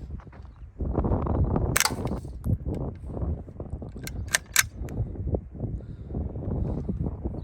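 Suppressed .22LR shots from an AR-15 with a .22 conversion kit and a Little Spoon suppressor, firing subsonic 40-grain rounds: sharp, muffled cracks. One comes about two seconds in, then three in quick succession a couple of seconds later.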